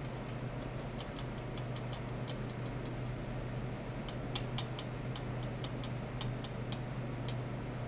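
Irregular clusters of sharp, high-pitched ticks, about four to six a second, over a steady low hum. The ticks pause briefly partway through and stop near the end.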